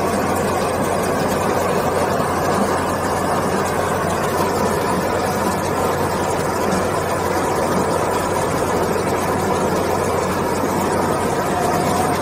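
Stone-cutting chain saw (QST3000D) mounted on a Caterpillar 444F2 backhoe loader, running steadily with its chain cutting into the stone. The loader's engine runs underneath as a constant low hum.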